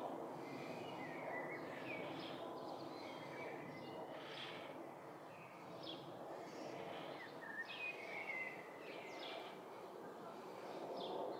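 Birds chirping in short, repeated calls, some falling in pitch, over a steady low background noise.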